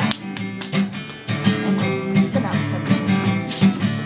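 Acoustic guitar strummed in a steady folk rhythm, the instrumental intro before the vocal comes in.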